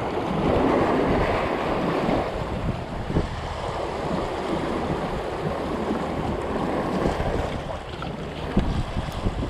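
Small waves washing and breaking over shoreline rocks, with a stronger surge of surf in the first two seconds. Wind buffets the microphone throughout.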